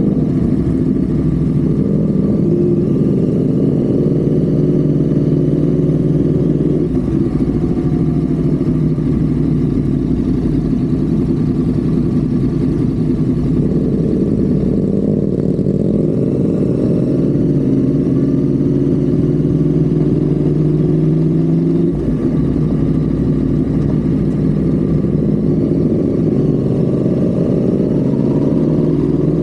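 Honda Civic FD's engine pulling steadily at highway speed, heard onboard with road noise, its note drifting slowly in pitch. About two-thirds of the way through the level dips briefly and the pitch steps, like a gear change, and near the end the note rises again.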